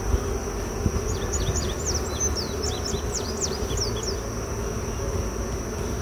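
Honeybees buzzing in a steady drone around the beekeeper, the colony stirred up and defensive after stinging. A songbird's rapid run of short chirps comes in about a second in and lasts about three seconds, over a thin steady high whine.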